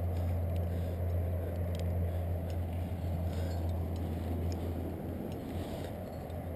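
A steady low rumble and hiss on a head-mounted camera, with a few faint metallic clicks of carabiners and quickdraws on a climber's gear.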